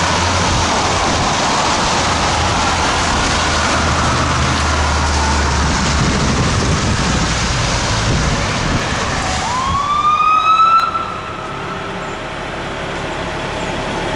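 Fire truck responding code 3: a faint wavering siren wail over the truck's low engine rumble, then a loud rising siren whoop about ten seconds in that cuts off sharply.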